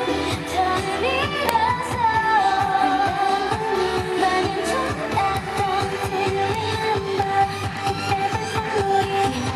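K-pop girl group singing into handheld microphones over a dance-pop backing track with a steady beat, heard through the concert sound system.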